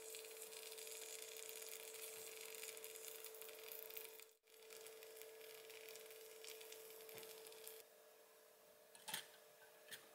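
Near silence: faint hiss and a steady low hum of room tone, with a faint click about nine seconds in.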